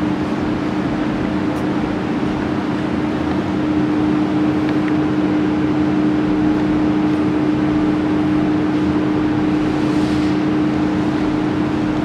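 Steady machine drone with a constant low hum.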